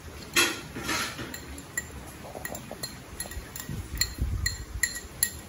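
Small glass cup clinking against a glass mixing bowl as raw eggs are tipped out of it: a soft splashy sound about half a second in, then about a dozen light, ringing glass clinks.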